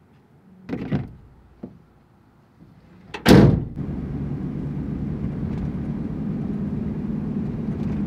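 A couple of thumps as a plastic cooler is set down in a pickup truck bed, then a loud bang a little past three seconds in, followed by steady engine and road noise heard from inside a moving vehicle's cabin.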